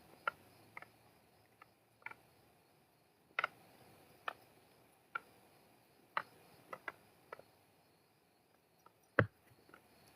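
Irregular sharp taps of flow sticks (devil sticks) knocking together as they are juggled, with a heavier knock about nine seconds in. Crickets chirp faintly behind.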